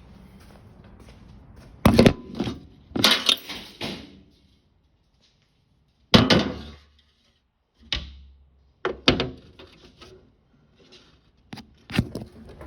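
Metal and glass parts of a stove door being handled: a string of separate clanks, knocks and short scraping rattles as the door frame and its glass panel are moved and set down.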